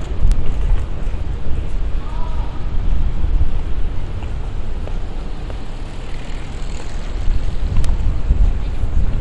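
Outdoor city street ambience dominated by a heavy, uneven low rumble of wind buffeting the microphone, with faint traffic noise underneath.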